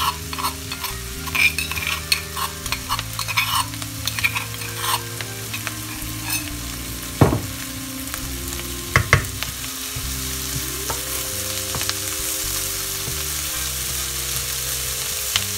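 Diced onions with fresh ginger-garlic paste sizzling in a nonstick wok while a wooden spoon scrapes and stirs them, with scattered clicks in the first few seconds and two sharp knocks around the middle. The sizzle turns steadier in the second half.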